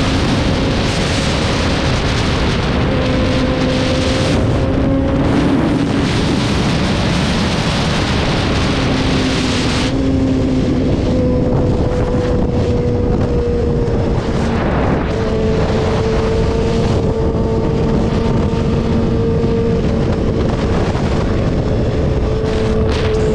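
Sportbike engine running at steady cruising revs under heavy wind rush on the camera's microphone. The engine note dips slightly about two-thirds of the way through, and the wind hiss turns duller about ten seconds in.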